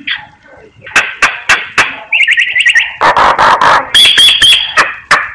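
Black myna singing a varied song: sharp clicking notes, a quick run of chirps about two seconds in, a harsh rasping stretch, then clear whistles near the end.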